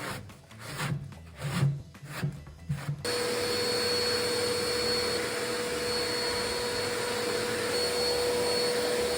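About five back-and-forth strokes of 180-grit sandpaper rubbing over dried spackle on wood. About three seconds in, a steady motor noise with a constant whine cuts in abruptly and takes over.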